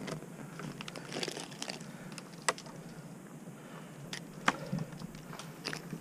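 Arborist's climbing gear (rope, rope wrench and carabiners) handled and shifting: light rustling with scattered small clicks, and two sharper clicks about two seconds apart.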